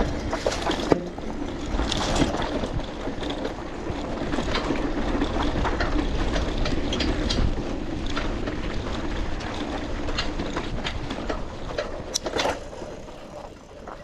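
Bicycle being ridden: a steady rumble of tyres and wind with frequent rattling clicks and knocks from the bike, a few sharper knocks near the end before it quietens.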